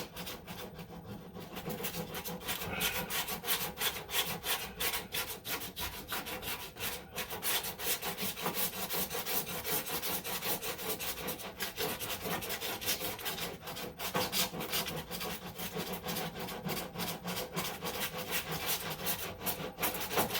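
Coarse sandpaper on a small hand sanding block rubbed quickly back and forth over cured body filler on a car panel: a steady run of many short, scratchy strokes. The filler is being sanded down to level it with the surrounding metal.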